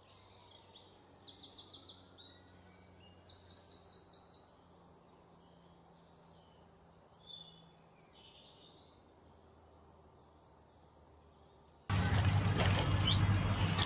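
Faint bird chirps and short high trills, fading to near silence. About twelve seconds in, louder steady background noise with a low hum cuts in suddenly, with birds still chirping over it.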